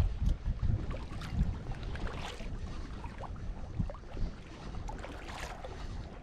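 Wind rumbling unevenly on the microphone, heaviest in the first second or so, with a few faint clicks and knocks.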